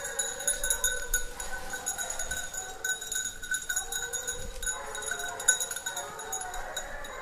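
A pack of petit basset griffon vendéen hounds baying as they run a scent, several voices in long, overlapping cries, with the bells on their collars ringing.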